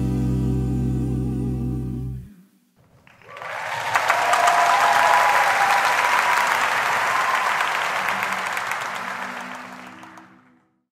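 A women's a cappella group holds a final chord over a deep sung bass, all cutting off together about two seconds in. After a brief pause the audience breaks into applause and cheering, which fades out near the end.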